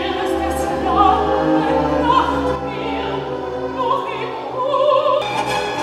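Opera music: an orchestra playing with a singer's voice wavering in wide vibrato above it. A little after five seconds it cuts abruptly to a different passage.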